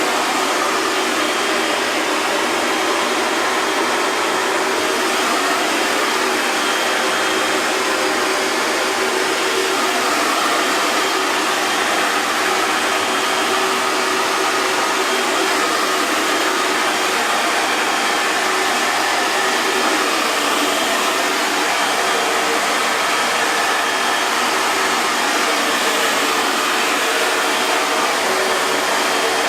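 Electric hair dryer running steadily on a constant setting: an even, unbroken rush of blown air with a faint steady motor whine.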